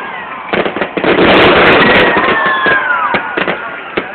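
Fireworks display going off: rapid sharp cracks and bangs that build to a dense, loud barrage about a second in, with several falling whistling tones through it.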